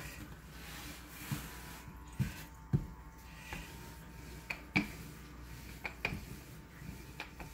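Wooden rolling pin and hands working sourdough dough on a floured wooden board: irregular soft knocks as the pin is set down and bumps the board, over a faint steady hiss.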